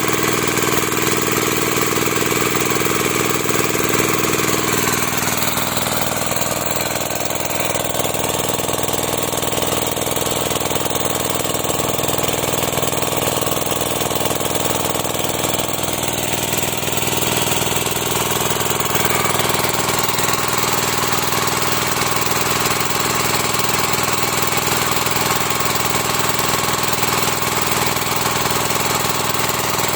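Sanchin MS30 sprayer's engine running steadily. Its pitch sags about five seconds in and climbs back up by two-thirds of the way through.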